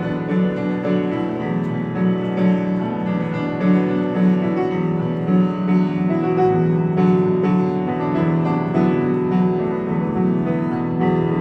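Solo piano playing slow, ringing chords over a steady low note.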